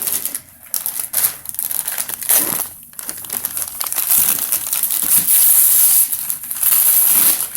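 Paper crumpling, rustling and tearing as a Christmas present box is unwrapped and opened, getting louder and denser in the second half.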